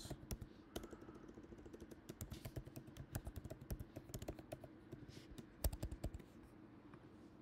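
Faint typing on a computer keyboard: a quick run of key clicks, with a few louder clicks about two-thirds of the way through, then the typing stops.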